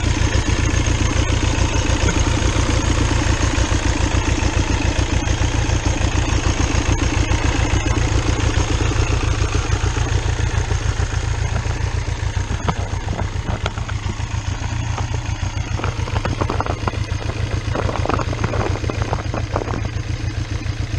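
A motorcycle's 1.2-litre three-cylinder VW Lupo 3L turbo diesel idling with a fast, even pulse. From about twelve seconds in, a few short knocks or clinks sound over it.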